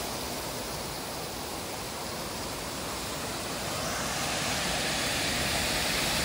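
Small waterfall on a city canal: water pouring over a weir in a steady rushing noise, growing a little louder about four seconds in.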